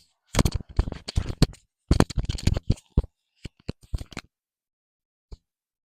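Close handling noise of an item being worked at by hand: two quick flurries of rustling, scraping and clicking over about four seconds, then a single click near the end.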